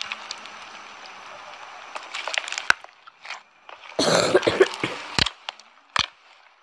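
Bead-studded foam slime squeezed by hand, giving faint hiss and a few sharp crackling clicks. A cough about four seconds in is the loudest sound.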